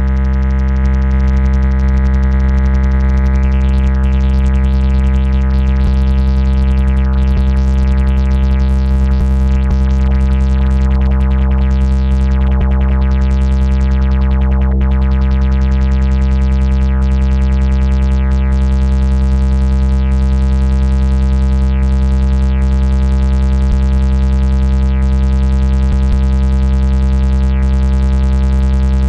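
Eurorack modular synthesizer playing a sustained low drone chord. For about the first fifteen seconds a brighter, wavering layer sweeps up and down over it, then settles.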